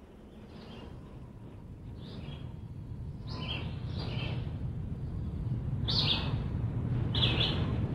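Birdsong: short chirps every second or so over a low steady hum that grows gradually louder, like the fade-in at the opening of a song.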